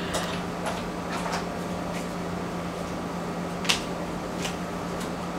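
Steady low hum of room background noise, with a few faint clicks and one sharper click a little past the middle.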